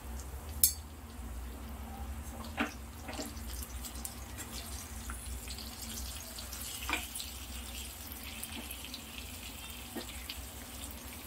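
Fish steaks sizzling in shallow oil in a nonstick frying pan, with four or five sharp clicks of a metal spatula against the pan as the pieces are turned. The sizzle thickens in the middle as pieces are flipped onto their raw sides.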